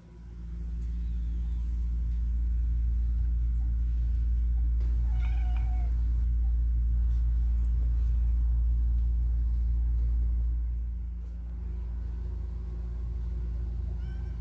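Tabby cat purring close to the microphone, a loud, steady low rumble that eases slightly after about ten seconds, with one short meow about five seconds in.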